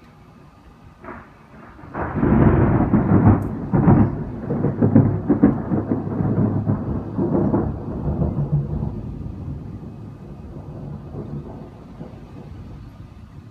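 Thunder: a short crack about a second in, then a loud rolling rumble with sharp crackles from about two seconds in, dying away slowly over the last several seconds.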